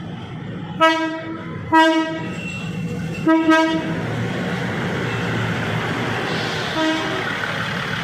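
New PNR passenger train sounding its horn in short toots, about five in all, while its rumble builds as it comes through.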